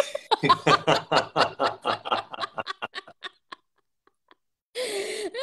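People laughing: a quick run of chuckles that fades out about three seconds in, then after a brief pause the laughter starts again near the end.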